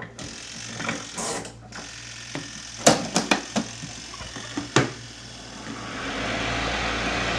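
Several sharp mechanical clicks as the controls of a portable twin-tub washer are set. About six seconds in, its spin dryer motor starts and runs steadily, working again after the repair.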